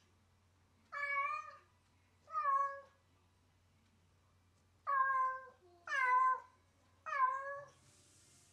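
A domestic cat meowing five times: two calls, a pause of about two seconds, then three calls close together. Each meow lasts about half a second and drops slightly in pitch at its end.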